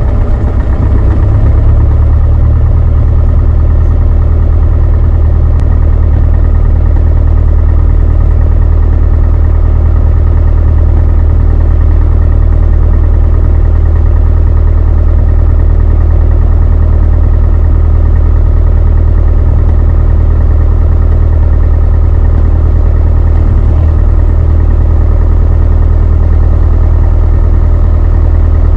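Beechcraft Sundowner 180's four-cylinder Lycoming engine and propeller running steadily, heard inside the cabin as a loud, even drone. The low drone gets a little stronger about a second and a half in.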